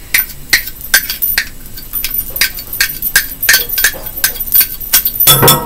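A utensil scraping and tapping against a metal measuring cup to work thick conditioner out of it: a quick run of small clinks, about three a second, with a louder clunk near the end.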